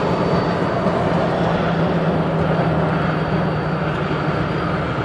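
Jeep TJ Wrangler coasting at highway speed with the throttle closed: steady road and drivetrain noise, with a thin high whistle that fades about a second in. It is the unexplained whistle that comes only on lift-off after several minutes of highway driving.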